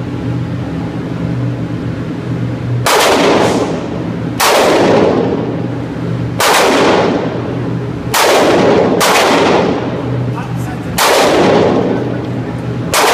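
Glock 27 .40 S&W subcompact pistol firing about seven single shots at uneven intervals of one to two seconds, starting about three seconds in. Each shot rings on in the echo of an indoor range.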